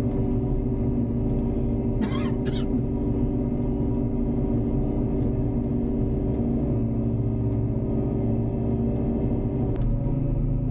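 JCB Hydradig's diesel engine running steadily under load, heard from inside the cab. About two seconds in come two short, higher squeaks. Near the end a click comes and the engine note shifts.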